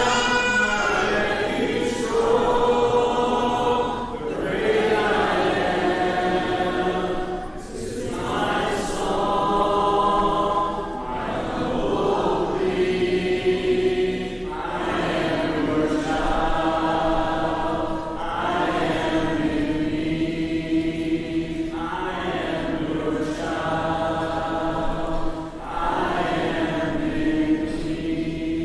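Congregation singing a hymn without instruments, in long held notes, with brief breaks between phrases every few seconds.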